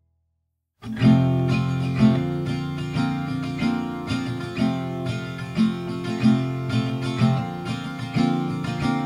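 Background music of strummed acoustic guitar, starting suddenly just under a second in after a moment of silence.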